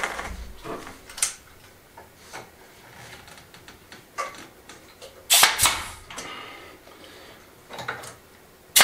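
Pneumatic nail gun firing nails into the wooden frame of a cabinet: two sharp shots, one about halfway through and one at the end. Light knocks and clicks from handling the tool and wood come in between.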